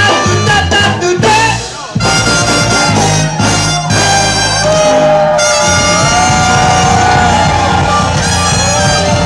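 Live ska band playing with a horn section of saxophones. The music drops out briefly just before two seconds in and comes straight back, and the second half carries long held notes.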